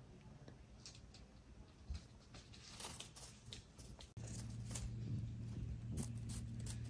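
Faint light rustles and patters of a chipmunk scampering over dry pine needles and onto a hand, a few small crackles a second. About four seconds in, a steady low hum comes up underneath.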